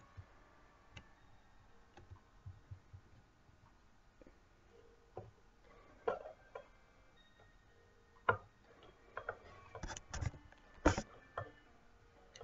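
Sparse light clicks and taps of things being handled on a desk, with a few sharper knocks in the second half.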